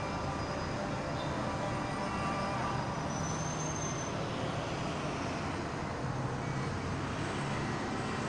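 Steady outdoor background hum, like distant traffic, with a brief faint high whistle about three seconds in.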